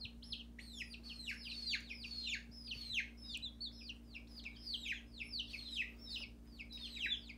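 Baby chicks peeping continuously: many short, high calls, each falling in pitch, several a second. A faint steady low hum runs underneath.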